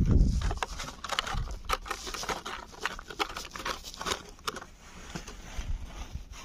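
A cat eating close to the microphone: rapid, irregular crunching and smacking clicks as it chews, thinning out over the last two seconds.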